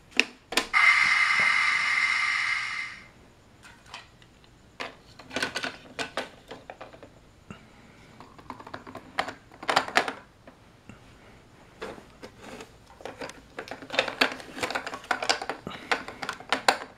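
Hard plastic toy pieces of a Thomas & Friends Tidmouth Sheds playset clicking and clacking as the vehicles are pushed into the sheds and the hinged shed ramps are handled, in irregular clusters. Near the start there is a loud hiss lasting about two seconds.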